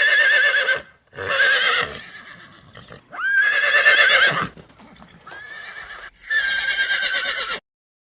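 Horse whinnying: five high, wavering neighs in a row, the fourth one quieter.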